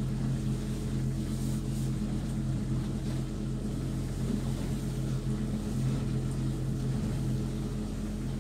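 Boat motor running steadily at slow cruising speed, an even low hum that holds the same pitch throughout.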